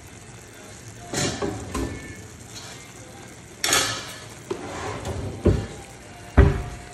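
A handful of clanks and scrapes of cookware at a pot on a gas stove, about five separate knocks, the loudest two low thumps near the end.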